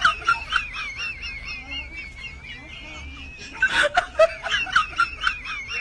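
A high, wavering whistle-like warble with quick short chirps over it, a comic sound-effect overlay; a brief noisy burst breaks in about two-thirds of the way through.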